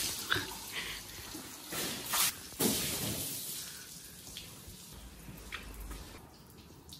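Water thrown from a bucket splashing over a car's body and running off onto the floor, with louder splashes about two to three seconds in, then dying away.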